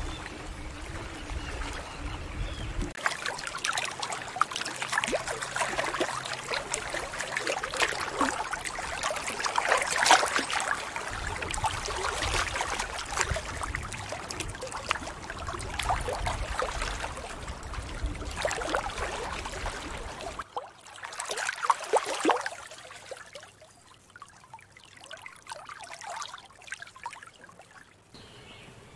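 Small waves of the Bothnian Sea lapping and splashing against shoreline rocks, with water trickling between them. It turns quieter about two-thirds of the way through, with a few splashes after that. A low rumble sits under it for the first three seconds.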